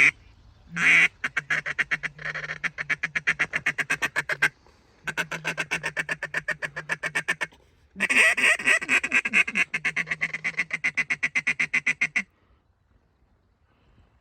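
Duck quacking in three long runs of rapid, evenly spaced notes, about eight a second, with short breaks between the runs, after a brief loud burst at the very start.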